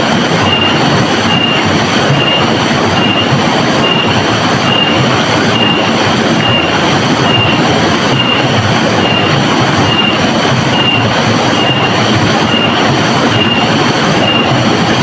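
River water rushing steadily and loudly. A short high tone pulses faintly above it about twice a second.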